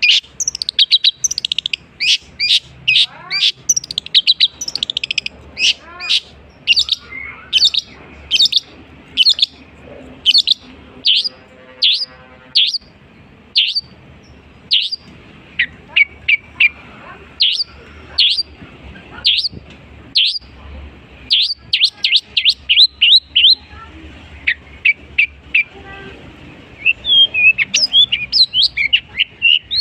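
Long-tailed shrike (cendet) singing a long string of sharp, high chirps, about two a second, in the mimicking song it is kept for; after a short lull near the end it breaks into a quicker run of chirps.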